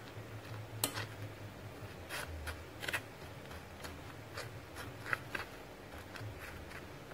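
A metal spoon scraping and tapping against a plate as banana pieces are rolled in breadcrumbs: a handful of short, separate scrapes, the sharpest about a second in and again about five seconds in.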